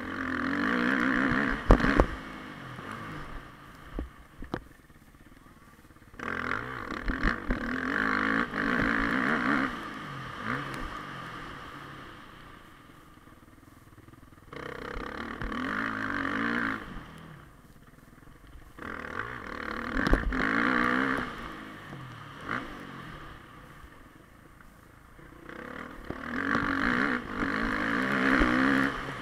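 Suzuki motocross bike's engine revving hard in about five bursts of throttle, dropping back between them, with a few sharp knocks as the bike crosses the rough dirt track, the loudest about two seconds in.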